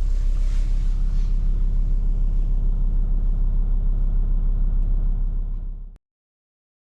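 Car engine idling, a steady low rumble that fades out about five to six seconds in.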